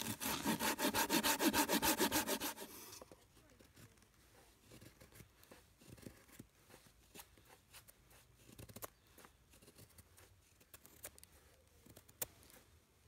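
Bahco Laplander folding saw cutting through a branch with quick back-and-forth strokes for about three seconds, then stopping. After that, faint scraping and small clicks of a knife shaving curls from a feather stick.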